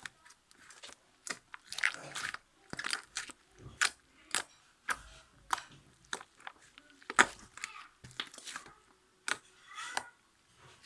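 Homemade slime with soothing gel mixed in being squeezed and pulled by hand: a run of irregular sticky clicks and wet pops, about one or two a second.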